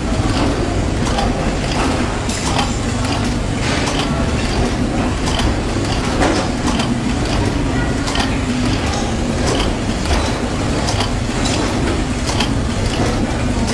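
Shoe-insole pad printing machine cycling, a string of mechanical clacks and clicks about once a second over a steady low rumble.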